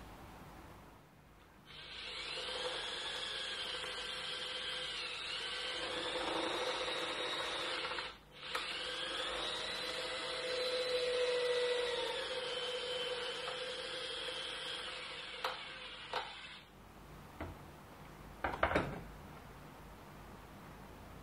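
Handheld cordless drill running in two long runs, about six and eight seconds, with a short stop between; its whine wavers slightly in pitch. Afterwards come a few sharp clicks and knocks of handling.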